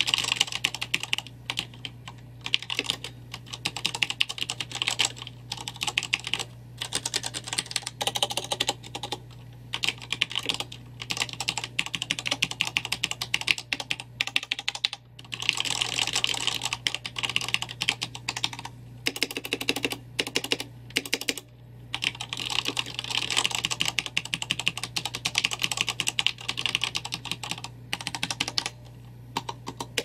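Fast typing on a Corsair K63 mechanical keyboard with Cherry MX Red linear switches: a rapid, dense stream of key clacks, broken by a few short pauses.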